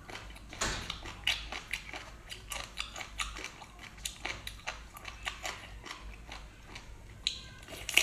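Close-miked eating: a person chewing, with many irregular wet clicks and crunches from the mouth and food.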